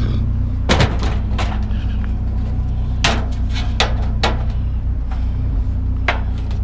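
A vehicle engine idles steadily, with a run of sharp knocks and clanks, about seven of them, as scrap items are handled.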